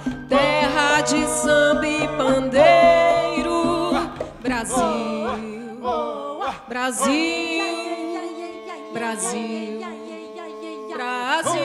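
Live samba arrangement: female voices singing held, gliding lines in harmony over percussion and low accompaniment. About halfway through, the low accompaniment and drum drop out, leaving the voices almost unaccompanied until the low part comes back near the end.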